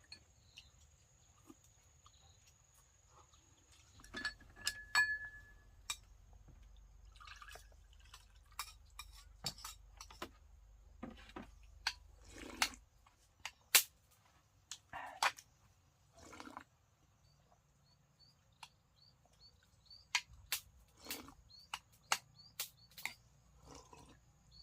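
Scattered clinks and knocks of dishes and utensils, irregular and spaced out, starting a few seconds in.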